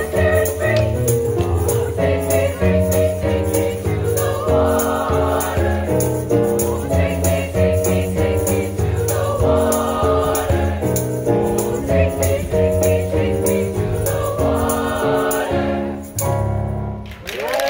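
Youth choir singing a gospel-style song in harmony, with instrumental backing and a steady percussion beat. The song closes on a held chord shortly before the end.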